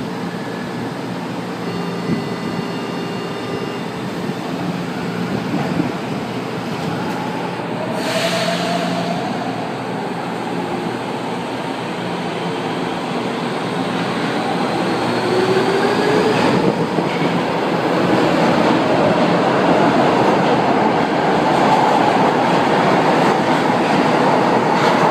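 São Paulo Metro K-fleet subway train closing up and departing from an underground platform. Early on there are steady warning tones, then a short burst of hiss a third of the way in. After that the traction motors whine upward in pitch and the running rumble grows steadily louder as the train pulls away.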